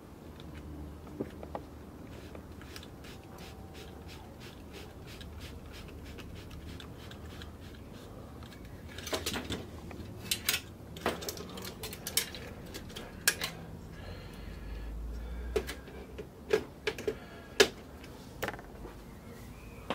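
Clicks and knocks of metal and plastic parts as a copier fuser unit is handled and reassembled by hand: a few light ticks at first, then a run of sharper clacks over the second half, the loudest a little before the end.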